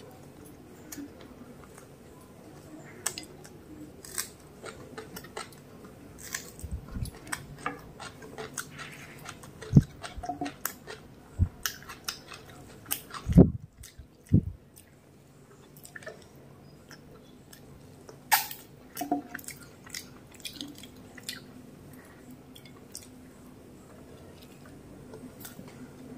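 Close-miked chewing and wet mouth sounds of someone eating mutton biryani by hand, with many short lip and finger clicks. A few dull thumps stand out, the loudest about halfway through.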